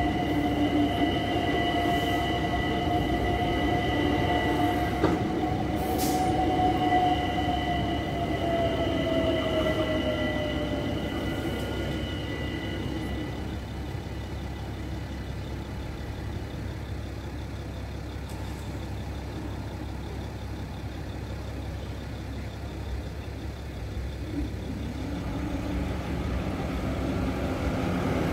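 London Overground Class 378 electric train crossing and drawing away. Its motors whine, falling in pitch and fading over the first dozen seconds, with two steady high tones that stop soon after. Then quieter traffic rumble, and near the end motorcycle and car engines rise as the traffic moves off over the crossing.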